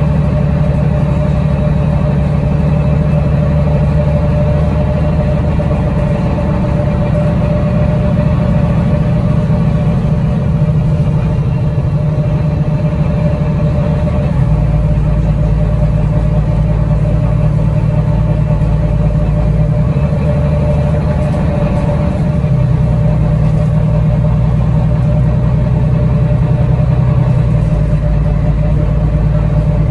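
Double-decker bus engine and drivetrain heard from inside the upper deck: a steady low drone with a faint higher whine, which steps up or down in pitch several times as the bus runs.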